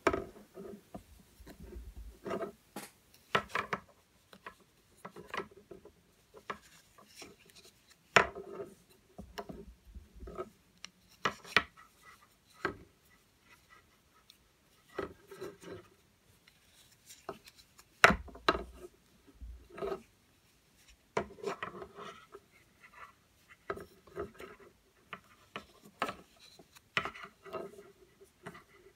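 Wooden knitting needles tapping and yarn rubbing along them as yarn-over and knit stitches are worked, in irregular short clicks and rustles. There are a couple of sharper clicks, about a third and two thirds of the way through.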